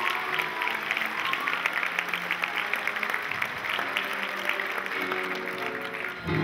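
Audience applause over instrumental music, with the music coming back in louder near the end.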